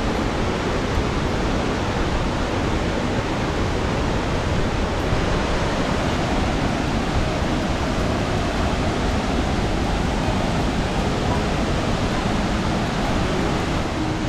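Waterfall and the rocky stream below it rushing in a steady, even roar of water.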